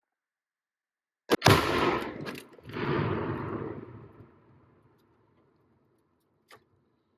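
A rifle shot about a second in, followed almost at once by the detonation of about two pounds of Sonic Boom binary exploding target packed inside a pumpkin. The blast's rumble swells again and fades over about three seconds, echoing off the mountainside.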